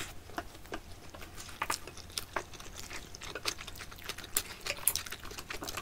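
Close-miked eating sounds of people chewing curry fried rice: many small, irregular mouth clicks and light taps of chopsticks and a wooden spoon.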